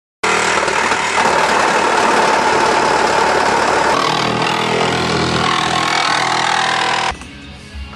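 A loud motor running steadily with a high whine. It cuts off suddenly about seven seconds in.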